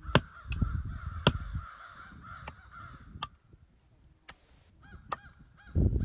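Machete blade chopping and trimming a green wooden branch on a stump: a series of sharp knocks, about one a second. Near the end a bird gives short calls several times a second.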